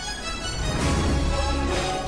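Background music with sustained notes over a held bass.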